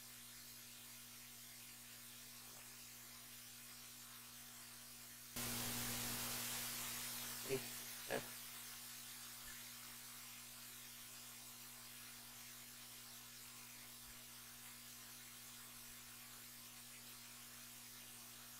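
Faint steady electrical mains hum through the microphone. About five seconds in, a sudden hiss starts and fades away over several seconds, and two short computer-mouse clicks come a little over half a second apart while files are picked in an Open dialog.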